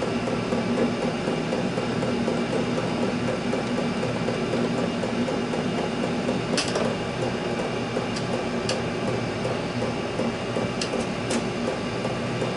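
Steady droning hum of a workshop heater, with a few sharp light clicks and taps in the second half as the inverter is screwed to the wall.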